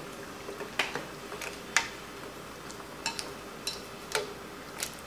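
Ladle and chopsticks knocking against a stainless steel hot pot and bowls while food is fished out of the broth: several light, separate clinks spread unevenly over a few seconds.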